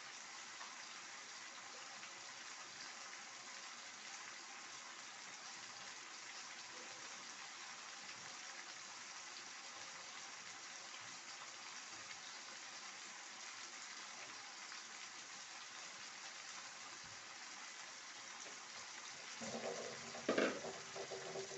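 A pot of dal boiling, a steady, even hiss. About two seconds before the end, a metal utensil clinks and knocks against the pot.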